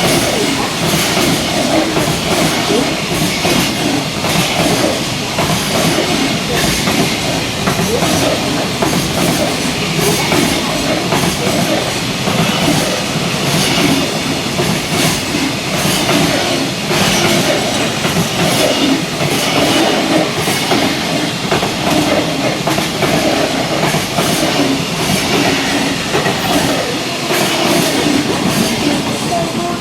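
Long freight train passing at speed: continuous wheel and rail noise with the clickety-clack of wheels crossing rail joints, fading a little near the end.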